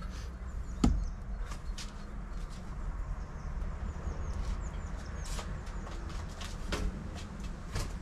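Scattered knocks and clicks as a wooden feeder arm with metal brackets is handled and moved about, with one sharp knock about a second in, over a low steady rumble.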